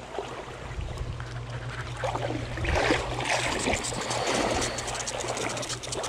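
Shallow creek water trickling and running over a riffle, with scattered small clicks and rustling.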